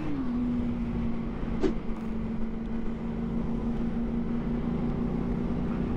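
Sport motorcycle engine cruising at a steady pace, heard from the rider's seat with wind rush. The engine note eases down slightly at the very start, then holds level.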